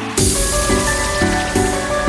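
Drum and bass background music: a bass chord pattern shifting about twice a second, with a burst of cymbal-like hiss just after the start.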